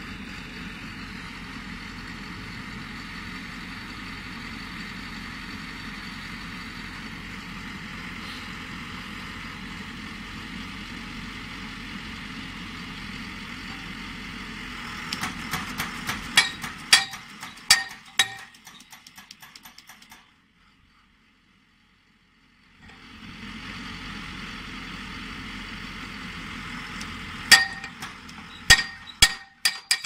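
Pile driver's engine running steadily, then its hammer striking a steel pile in sharp, ringing metallic clangs: a short burst about halfway through and again near the end, the strikes coming faster. The sound drops out for a couple of seconds between the two bursts.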